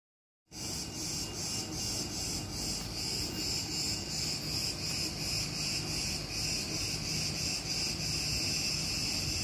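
Cicadas chirring in a dense, high-pitched chorus that pulses a few times a second, starting suddenly about half a second in.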